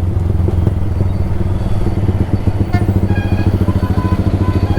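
Single-cylinder motorcycle idling through a loud exhaust, with a steady, even, rapid exhaust beat.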